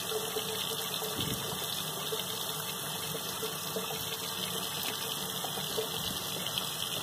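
Kitchen faucet running a steady stream of water into a stainless steel sink, an even hiss and splash.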